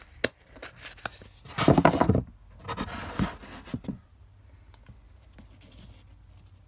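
Small plastic spiderling pot handled and opened in polystyrene packing: scratching and scraping, with two loud noisy bursts about one and a half and three seconds in and light clicks up to about four seconds in, then only faint handling.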